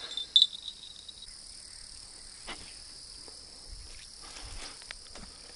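A small bite-alarm bell on a bank fishing line tinkles a few times in the first second or so, over a steady high chirring of crickets; a few faint knocks follow.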